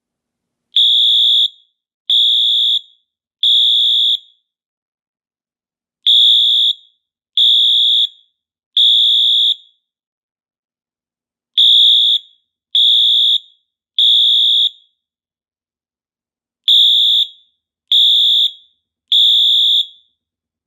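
Wheelock MT fire alarm horn sounding in the temporal (Code 3) pattern. There are four rounds of three loud, steady, high-pitched blasts, each round followed by a longer pause.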